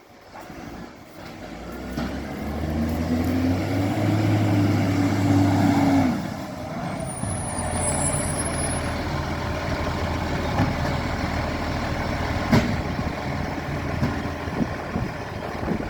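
Garbage truck engine with an exhaust leak, pulling harder with rising pitch and loudness, then easing off about six seconds in to a steady run. A brief high squeal sounds soon after, and a sharp knock comes near the end.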